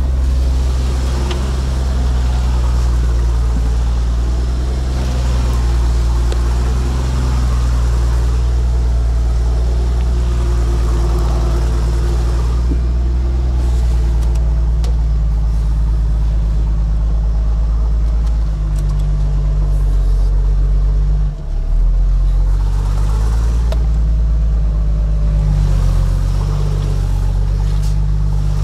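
Toyota Land Cruiser 80's engine running at low revs as the truck crawls off-road, a steady low drone that rises and falls a little. Its sound dips briefly once, about three-quarters of the way through.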